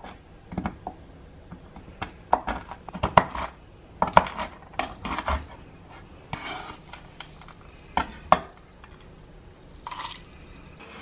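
All-steel chef's knife chopping almonds on a wooden cutting board: irregular sharp knocks of the blade through the nuts onto the board. A short scrape a little past halfway, and a brief rattle near the end as the chopped almonds go into a cup.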